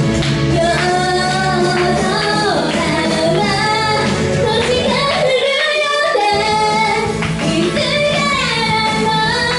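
A woman singing a J-pop song with full pop accompaniment. About five seconds in, the bass and low end drop out for about a second while her voice carries on, then they return.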